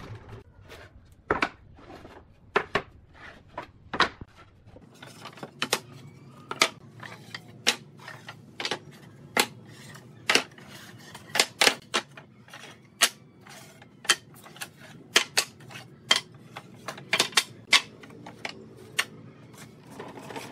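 Wooden boards knocking and clattering against each other as they are handled and stacked on a wooden table: sharp, irregular wood-on-wood knocks, about one to three a second.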